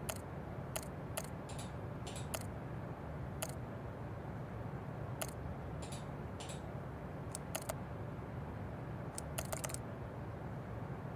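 Computer mouse clicking irregularly, about fifteen sharp clicks, some in quick pairs and a short run of them near the end, over a steady low room hum.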